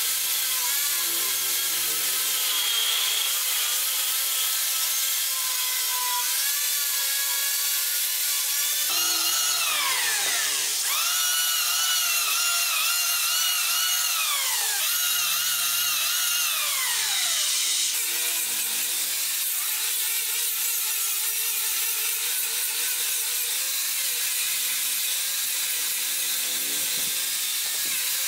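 Power tools working wood. An angle grinder fitted with an abrasive disc grinds and sands a carved wooden railing piece, its motor whine dipping under load. In the middle stretch an electric hand planer runs instead, its whine falling each time it bites into the wood and rising again as it comes free.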